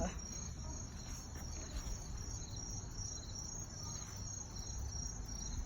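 Crickets chirping: a steady, high-pitched pulsing trill repeating evenly several times a second, over a faint low outdoor rumble.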